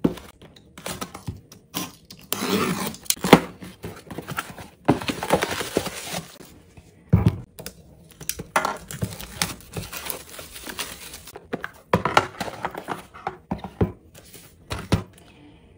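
Packaging being torn open and handled: a cardboard shipping box and the plastic-wrapped DVD box set, heard as several bursts of tearing and crinkling, with a dull thump about seven seconds in.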